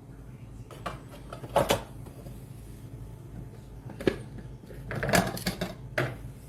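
A handful of sharp knocks and clatters of hard kitchen items being handled, with the busiest cluster about five seconds in, over a steady low hum.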